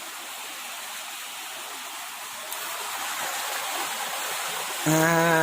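Steady hiss of flowing water, growing a little louder partway through. Near the end a man's voice lets out a long sound that falls in pitch.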